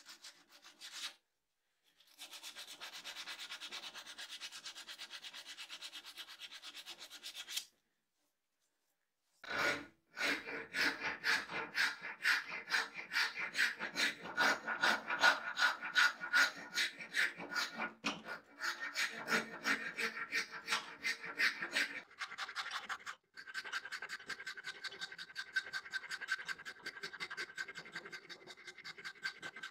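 Sandpaper rubbing steadily on a steel hammer head, then, after a pause, a rasp filing a wooden handle blank clamped in a vise in rapid back-and-forth strokes.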